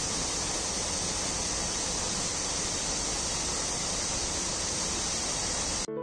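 Waterfall pouring into a rock pool: a steady, even rush of falling water that cuts off abruptly just before the end.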